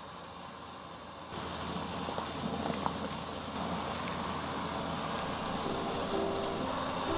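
Baking-soda water simmering in a pan with a steady bubbling hiss that grows louder about a second in, while bagels are lifted out and lowered in with a metal slotted spoon and spatula, giving a few faint clicks. Light piano background music comes in near the end.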